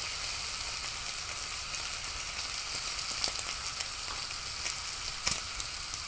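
Food frying in a hot pan: a steady sizzle with fine crackling, and a few sharper pops in the second half.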